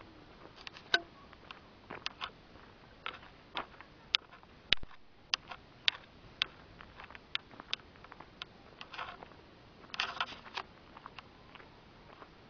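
Footsteps on a gravel lane and the jostling of a handheld camcorder: sharp clicks at about walking pace, roughly two a second, with a denser cluster of clicks about ten seconds in.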